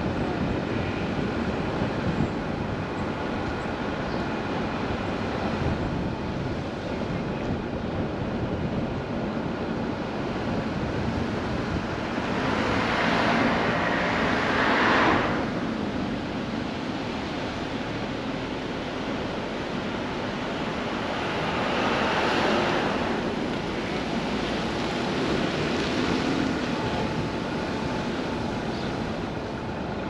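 Steady traffic noise with two louder swells as vehicles pass, the first about halfway through and the second about two-thirds of the way through.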